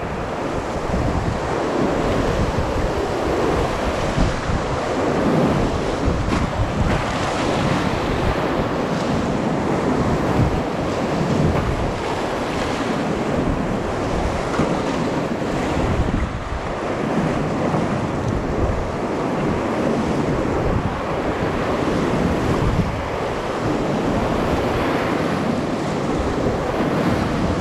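Whitewater rapids rushing and splashing steadily around a wooden river dory as it is rowed through them, with wind buffeting the microphone.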